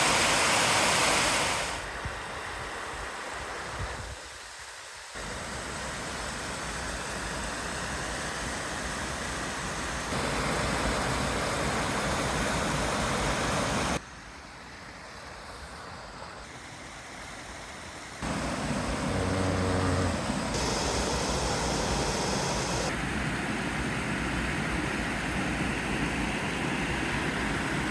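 Rushing spring-melt waterfall: a steady roar of falling water that steps louder and quieter abruptly several times.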